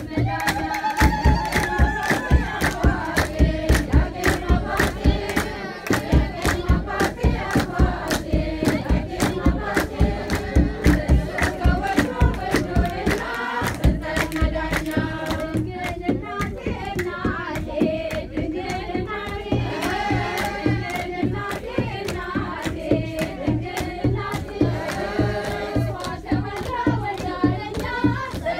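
A group of women sings an Ethiopian Orthodox hymn (mezmur) together, with a steady beat on a kebero drum and rhythmic hand clapping. The drum drops out briefly about halfway through.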